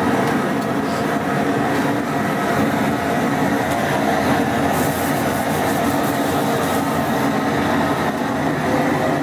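A steady rumbling hum. A hose spray nozzle hisses onto live blue crabs in a steel boiling basket for a couple of seconds about halfway through.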